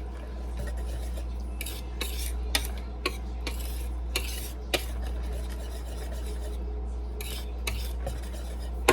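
A utensil stirring banana bread batter in a mixing bowl, with short scrapes and a handful of sharp clinks against the bowl, as chopped pecans are mixed in. A steady low hum runs underneath.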